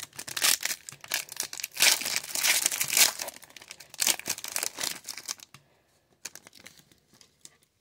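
Foil wrapper of an Upper Deck Allure hockey card pack being torn open and crinkled: a dense run of crackling and tearing that thins out about five seconds in to a few faint ticks as the stack of cards is handled.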